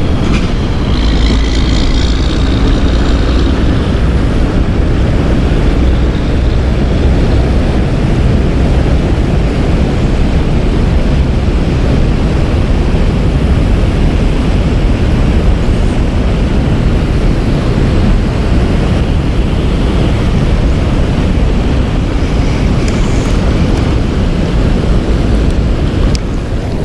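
Steady loud rush of fast-flowing shallow river current, with a deep rumble underneath.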